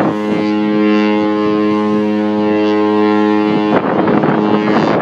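Cruise ship horn sounding one long, steady blast. About four seconds in, a loud rough noise rises over it, and then the sound cuts off suddenly.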